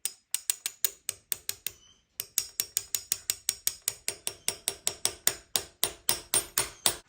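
Rapid, evenly spaced metallic clicks from hand-tool work on the RC car's drivetrain, about six a second. A short run comes first, then after a brief pause a longer one.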